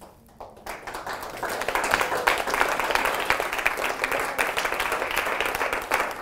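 Audience applauding, building up over the first couple of seconds and then holding steady.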